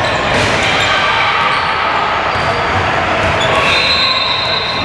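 Basketball being dribbled on a hardwood gym floor during play, amid a steady din of voices and echo in a large hall.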